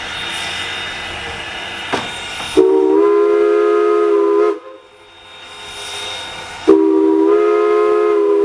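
A PRR three-chime steam whistle on a 4-8-0 steam locomotive blows two long blasts of about two seconds each, a steady chord of several notes that cuts off sharply after each blast. Before the first blast there is a steady hiss of steam and the running noise of the train.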